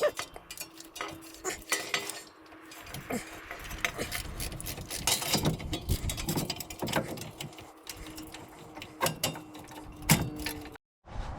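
Metal hand tools and parts clinking and knocking irregularly, with some ratchet-like clicking, as a truck's front wheel hub assembly is worked on.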